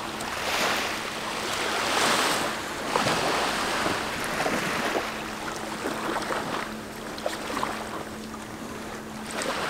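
Small waves washing and lapping onto a sandy shore in surges, with the splash of bare feet wading through the shallows. A faint steady hum runs underneath, clearest in the second half.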